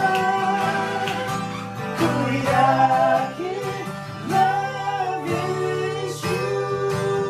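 Acoustic guitar playing a chord accompaniment, with a man's voice holding long sung notes over it.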